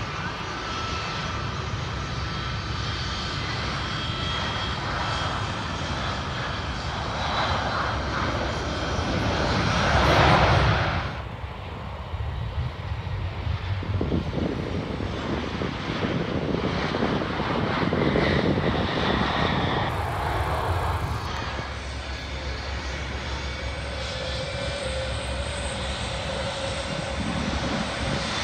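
Jet airliner engines of landing aircraft heard across the airfield. The noise swells to a peak about a third of the way in and drops away suddenly, then builds again in a second, broader swell.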